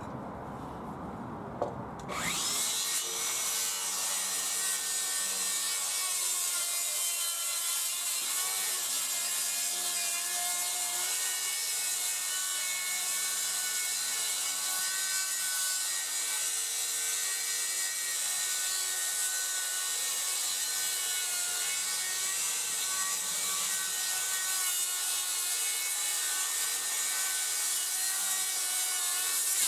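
DeWalt DCS578 54 V cordless 190 mm circular saw spinning up about two seconds in, then ripping steadily along a 3 m length of wet, tanalised 2-inch timber. The motor pitch holds steady under load without bogging down.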